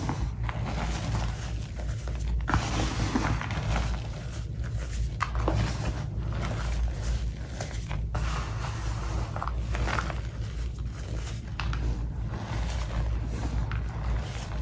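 Reformed gym chalk being crushed and crumbled by hand in a bed of loose chalk powder: dense, irregular crunching and crackling with soft powdery scrapes as the hands squeeze and scoop.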